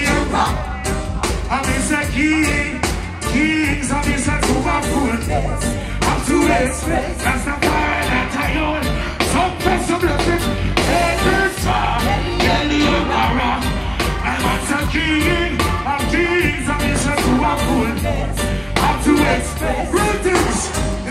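Live reggae band playing with singing over a steady, heavy bass line.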